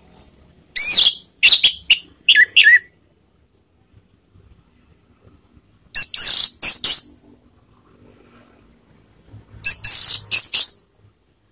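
Orange-headed thrush (anis merah) singing three short phrases a few seconds apart, each a quick run of loud, high whistled and rasping notes.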